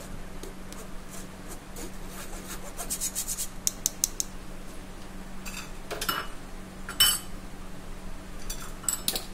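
A steel spoon scraping and rubbing flour through a fine metal mesh sieve in a glass bowl, in quick repeated strokes, with sharp clinks of metal on glass; the loudest clink comes about seven seconds in.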